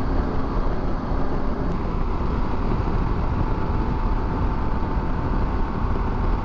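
Harley-Davidson Pan America adventure motorcycle at highway speed, heard from a helmet-mounted camera: steady, heavy wind rush with the engine and tyres underneath. A faint steady whine comes in about halfway.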